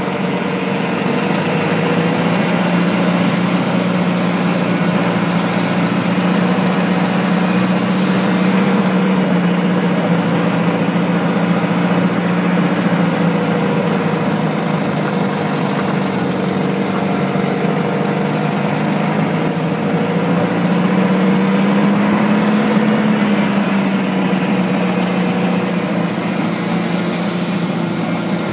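Small dumper truck's Mini four-cylinder petrol engine running steadily, its speed lifting briefly about two-thirds of the way through before settling again.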